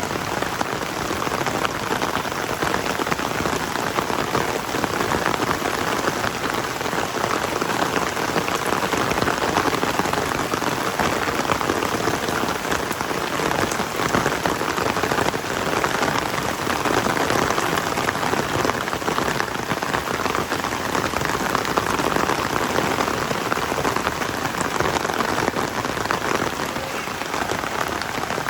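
Heavy rain falling steadily, a dense patter of countless drops striking the ground.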